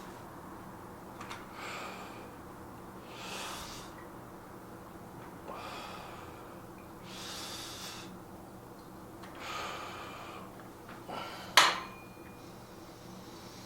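A man breathing hard in forceful exhalations about every two seconds, the effort breaths of a set of dumbbell shoulder presses. About eleven and a half seconds in there is a single sharp clink, the loudest sound, with a brief ringing tone after it.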